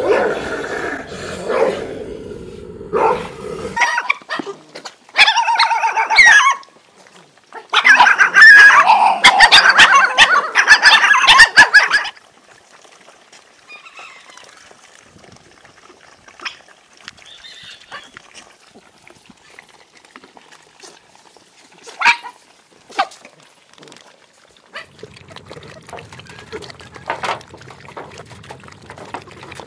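Two stray dogs fighting, growling at first, then loud yelping and snarling that peaks from about eight to twelve seconds in. After that, only faint scattered clicks and shuffling as a pack of dogs eats.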